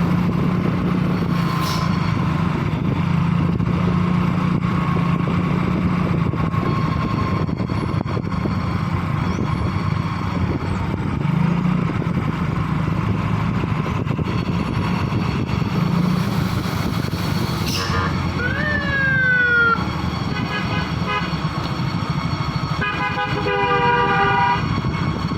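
Dump truck engine running steadily. Near the end a telolet horn sounds: a falling, siren-like glide, a few short tooted notes, then a longer chord of several tones.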